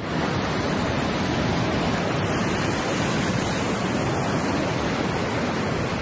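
Storm waves surging over a flooded seafront: a steady rush of surf and churning seawater.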